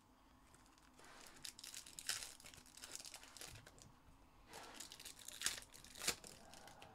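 Foil wrapper of a Topps Chrome trading-card pack crinkling as it is handled and torn open by hand, with two sharp crackles near the end.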